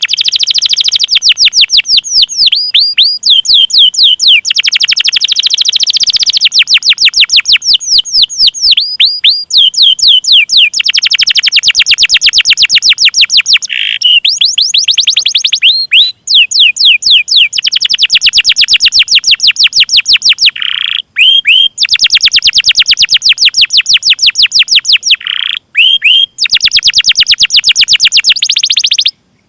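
Loud songbird song from a masteran tutor recording for cage birds: long runs of sharp, rapidly repeated sweeping chirps, many a second, in phrases broken by a few short pauses.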